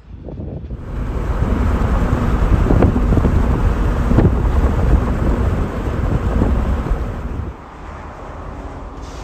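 Wind buffeting the microphone over the low rumble of a moving vehicle, building over the first second. Near the end it drops suddenly to a quieter steady rumble.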